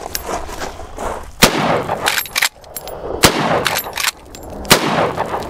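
Marlin lever-action rifle fired three times, about one and a half to two seconds apart, each shot trailing off in an echo, with lighter metallic clicks between shots as the lever is worked.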